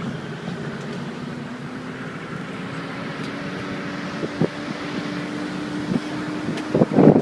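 Car driving along a road, heard from inside the cabin: a steady engine hum whose pitch rises slightly with road noise underneath, and a few light knocks. Near the end, wind gusts buffet in through a partly opened window.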